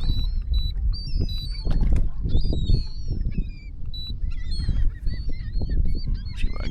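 A flock of seabirds calling over feeding fish, many short high cries overlapping, with a steady low rumble underneath.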